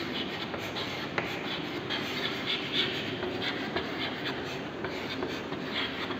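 Chalk scratching on a chalkboard as words are written by hand, in short scratchy strokes with a sharp tap about a second in.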